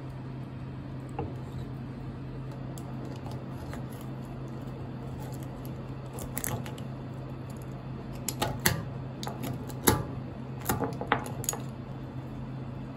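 Knife and fingers working raw turban shell meat on a plastic cutting board: scattered clicks and taps, bunched in the second half with one sharper knock, over a steady low hum.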